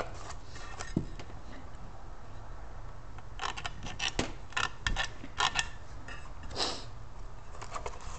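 Scattered small clicks, taps and scrapes of hands and tools working on a blown car-audio subwoofer's parts, bunched from about three to seven seconds in with a longer scrape near the end, over a low steady hum.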